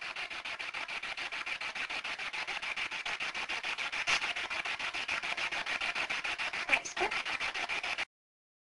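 Steady rasping hiss of an audio recording's background noise, pulsing evenly about eight times a second, with a faint brief sound near the end; it cuts off abruptly to dead silence.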